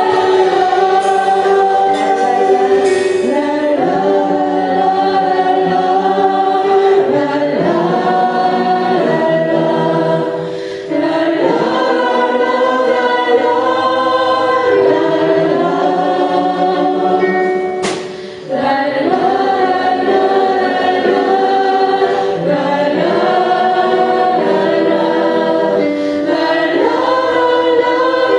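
Worship team singing a slow Christian praise song, many voices together holding long notes over instrumental accompaniment. A single sharp hit sounds about 18 seconds in.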